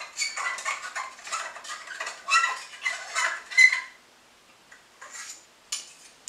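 Metal carving fork and large spoon clinking and scraping against a frying pan and each other as spaghetti is twisted into a nest, a busy clatter for about four seconds, then a few lighter single clinks.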